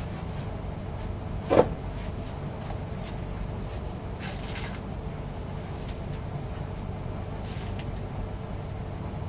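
Handling noise of a disposable respirator being fitted: a single sharp knock about one and a half seconds in, then brief rustles of the mask and elastic straps, over a steady low room hum.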